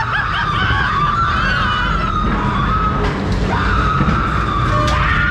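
Ghost train sound effects: a high, wavering wail that dips and rises again a few times, over the steady low rumble of the ride car running along its track.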